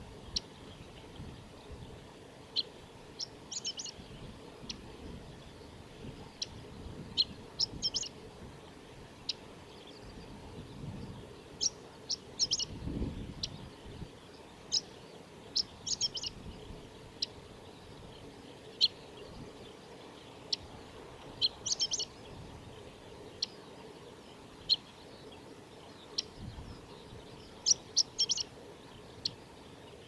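Male chestnut-eared bunting singing: about six short song phrases, each a quick run of high, sharp notes, coming every few seconds.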